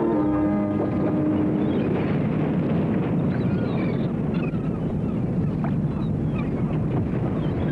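Harbour ambience in a cartoon soundtrack: a dense, steady low rumbling wash with short high bird cries scattered over it. A held brass note from the score dies away in the first couple of seconds.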